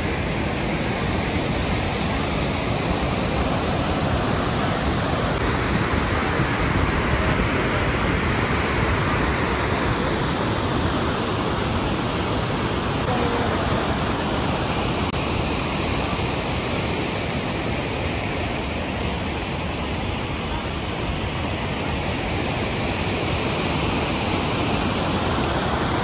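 Iguazu Falls' cascades and rapids: a steady, dense rush of falling water.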